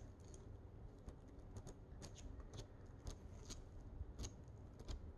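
Pages of a paperback chapter book being flipped through by hand: a string of faint, quick paper flicks at an uneven pace.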